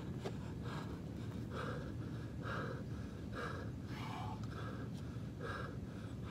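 A man breathing hard, panting about once a second as he recovers from exertion between sets of push-ups.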